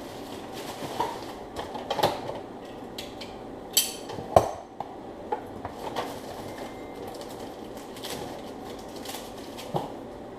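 Intubation equipment being handled and set up in a hurry: scattered clicks, knocks and clatter of plastic and metal pieces, with the loudest sharp clack about four seconds in, over a steady room hum.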